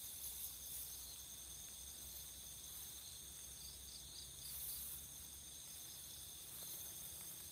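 Faint, steady high-pitched trilling of crickets and other night insects, several drones layered at once, with a brief run of chirps about four and a half seconds in.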